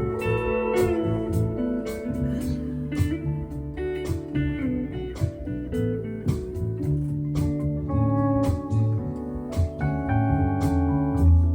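A band playing an instrumental break with no singing: a guitar carries the melody, its notes sliding at times, over bass and a steady drum beat.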